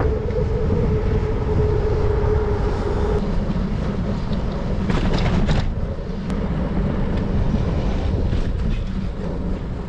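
Wind rushing over the microphone and road traffic noise while cycling along a busy road. A steady hum stops about three seconds in, and there is a brief rattle a couple of seconds later.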